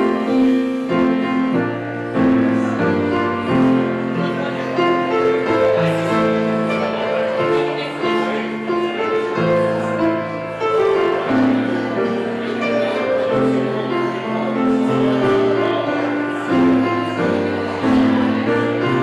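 Grand piano playing a piece of held notes and chords at a steady level.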